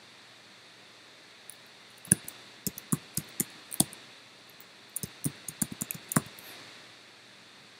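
Computer keyboard keystrokes: a run of typing about two seconds in, a short pause, then a second, quicker run about five seconds in.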